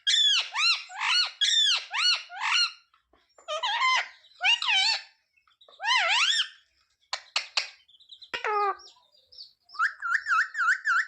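Ringneck parrot (rose-ringed parakeet) calling in runs of short, high, pitch-bending squawks and chatter with brief pauses, ending in a quick wavering trill.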